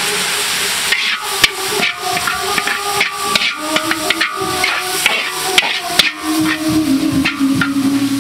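Water sizzling and steaming in a hot wok of frying curry paste, then a metal spatula knocking and scraping against the large metal wok, with irregular clanks that ring.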